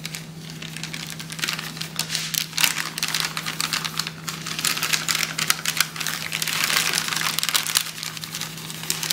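A clear plastic cake-mix bag crinkling and rustling as it is shaken and squeezed to sprinkle dry cake mix over a baking dish. The crackle is irregular and continuous, over a steady low hum.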